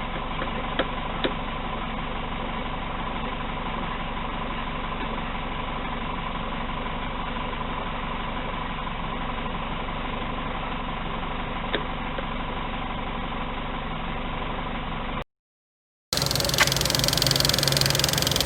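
Peugeot 206 SW GTi's four-cylinder engine idling, with a steady high-pitched tone over the running note: the annoying noise it makes while cold, which fades away as it warms up. A few faint clicks sound along the way, and near the end the sound cuts out briefly before the engine is heard again, louder.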